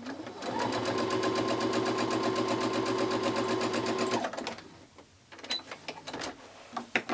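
Baby Lock Jubilant sewing machine stitching a short seam at a steady fast rate. It spins up at the start and stops about four seconds in.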